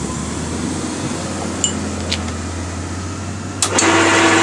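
A 1960s Craftsman horizontal metal-cutting bandsaw runs with a steady low hum while its blade is lowered, with a couple of light clicks. About three and a half seconds in, the blade bites into the steel workpiece and the sound jumps much louder: a steady cutting hiss with a held tone.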